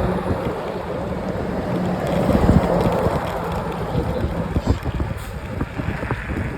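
Wind buffeting the microphone as a steady low rumble, with scattered light ticks and knocks in the second half.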